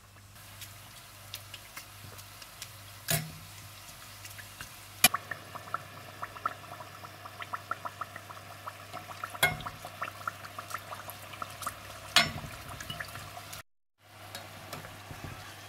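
Samosas deep-frying in hot oil: a steady bubbling sizzle full of small crackles. A few sharper knocks stand out, about four of them.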